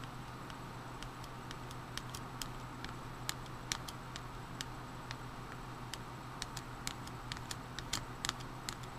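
Irregular soft clicks and light scraping as a plastic card spreads thermal paste across a CPU heatsink's metal base, over a steady low hum.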